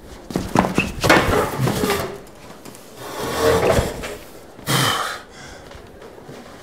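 A man struggling out of his trousers: clothing rustling and feet scuffing on the floor in three loud bursts, the last as he drops onto a chair.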